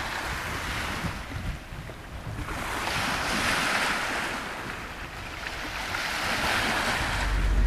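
Small waves washing onto a stony shore, with wind buffeting the microphone; the wash swells and fades as the waves come in. Near the end a low steady rumble comes in.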